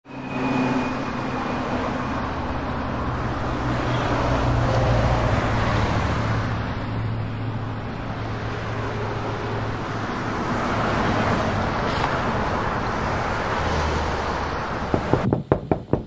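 Steady outdoor road traffic noise with a low engine hum. Near the end come several sharp clicks in quick succession.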